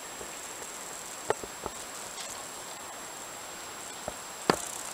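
Quiet outdoor ambience: a steady hiss with a faint, thin high whine over it, broken by a few brief clicks, the sharpest about four and a half seconds in.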